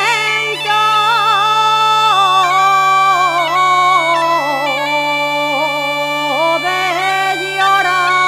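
Gaita (bagpipe) playing an instrumental passage: an ornamented melody with quick trills over a steady, unchanging drone.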